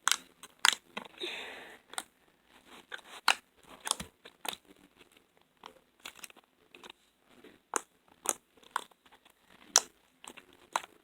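Clicky slime being poked and squeezed by hand, giving off irregular sharp clicks and pops.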